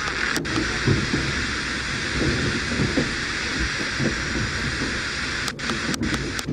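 FM radio receiver giving out static hiss between stations as it is tuned up the band, with a short dropout at each frequency step, three of them near the end. A low irregular rumble runs underneath.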